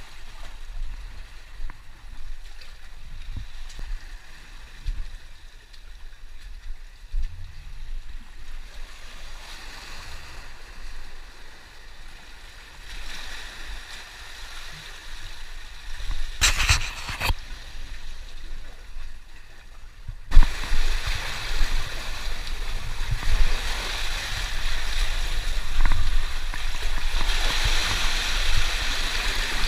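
Seawater washing and gurgling over a rocky reef platform, with a brief clatter of sharp knocks a little past halfway. About two-thirds through the wash becomes suddenly much louder and fuller, with a low rumble under it.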